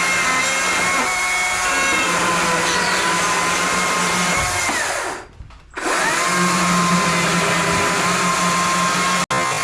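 Electric power tool running with a steady high motor whine. About four and a half seconds in, it winds down and stops, then starts again and winds back up about a second later. It cuts off abruptly just before the end.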